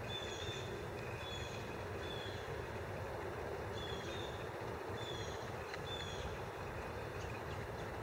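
Case 590 Super L backhoe loader's diesel engine running steadily, with short high chirps now and then over the engine noise.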